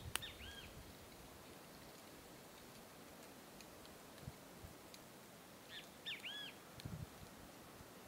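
A bird gives a short call of a few quick arching notes just after the start, and repeats it about six seconds in, over quiet dry-scrub ambience. A few faint low thumps fall between and after the calls.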